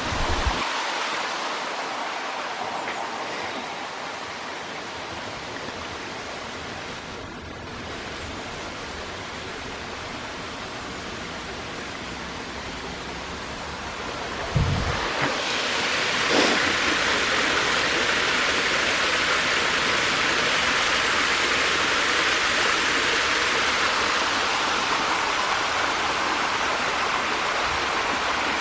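Shallow stream rushing over stones, a steady hiss of running water that grows louder about halfway through. A brief thump sounds just before the rise.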